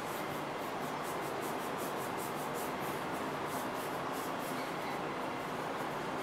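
Rag rubbing along a strip with acetone in quick repeated strokes, over a steady background hiss.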